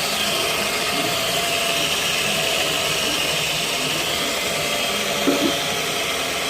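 Small electric shaft-polishing machine running steadily, spinning a Mazda 13B rotary engine's eccentric shaft while an aluminium-oxide abrasive belt polishes it, with a steady hiss of sanding.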